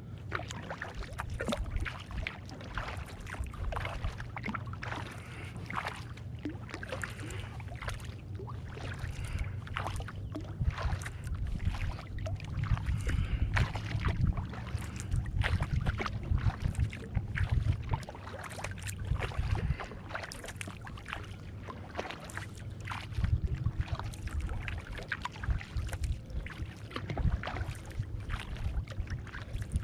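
Kayak paddling on calm water: paddle blades dipping and splashing, with steady small splashes and drips throughout. A low rumble runs underneath and swells through the middle.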